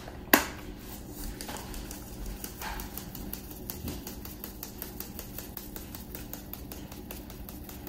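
A plastic shaker bottle of dry BBQ rub being shaken over a slab of ribs, its contents rattling in a steady rhythm of about five light ticks a second. There is one sharp click shortly after the start.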